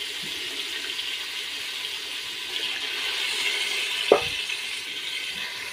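Water poured from a mug into a hot aluminium pot of frying onions, the pot hissing and sizzling steadily. A single knock about four seconds in.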